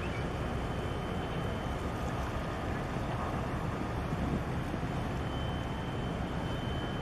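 Steady wind noise on the microphone, a low even rumble, over choppy harbour water slapping the breakwater.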